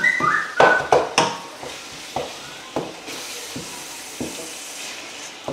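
Wooden spoon stirring and scraping minced meat and grated vegetables in a frying pan, with irregular scrapes and knocks over a low, steady sizzle as the mixture cooks.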